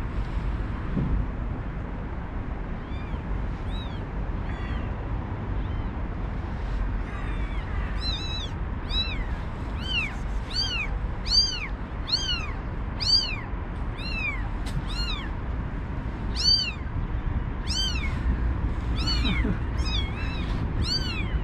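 Newborn kittens crying with short, high-pitched mews that rise and fall in pitch, a few at first and then one every half second to a second.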